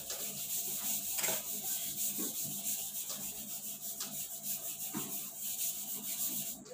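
Whiteboard eraser rubbing across a whiteboard in rapid back-and-forth strokes, wiping off written words. The scrubbing stops suddenly near the end.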